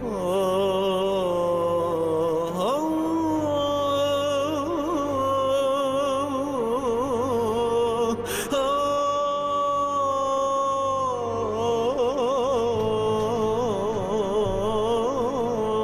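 Slow dramatic background music: a single sustained melody line that wavers with vibrato, over a low steady drone. A short sharp click sounds about eight seconds in.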